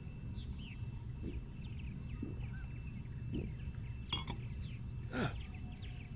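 A man sips beer from a stemmed glass, with a few small gulps, then sets the glass down with a sharp glass clink about four seconds in; a short louder noise follows about a second later. Faint bird chirps and a low outdoor rumble run underneath.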